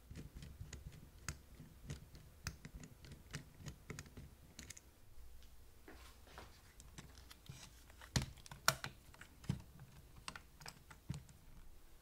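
Faint, irregular small clicks and taps of a screwdriver working the motor screws and of a cassette-deck mechanism being handled on a workbench, with a few sharper knocks about two-thirds of the way through.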